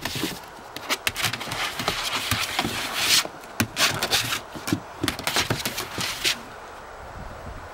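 Puppies' claws scrabbling and scratching on a plastic-covered board as they tug at a hare carcass, with the fur scraping across the sheet as it is dragged. The scratching comes in rapid, irregular strokes and dies down about six seconds in.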